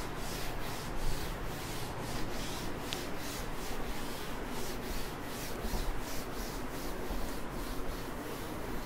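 Chalkboard duster being wiped back and forth across a chalkboard in repeated strokes, erasing the writing.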